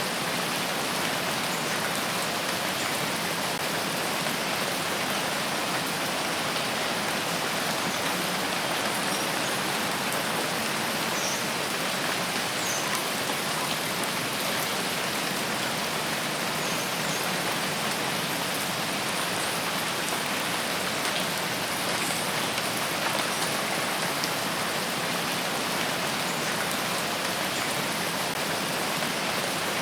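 Steady rain falling, an even hiss of many drops with no change in level.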